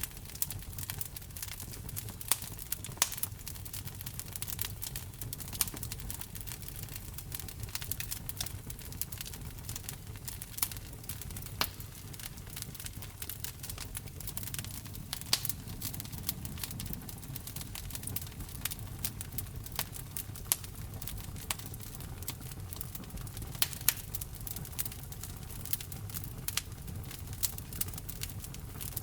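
Wood fire burning in a fireplace: irregular crackling and sharp pops of burning logs over a steady low rumble of the flames, with several louder pops.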